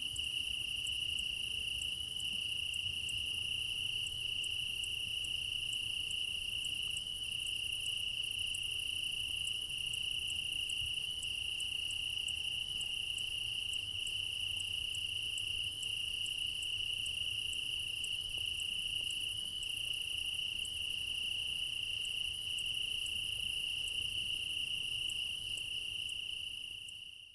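Crickets chirping at night in a continuous chorus: a steady high trill held at one pitch, with fainter rapid ticking above it. The sound fades out at the very end.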